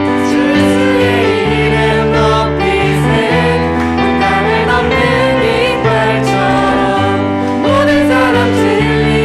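Worship song with sustained keyboard chords and voices singing a melody over them.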